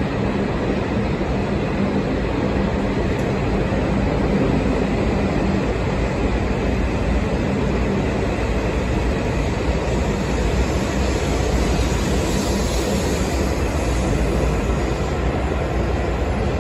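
E5 series Hayabusa shinkansen moving along the platform, a steady rumble of the train running past.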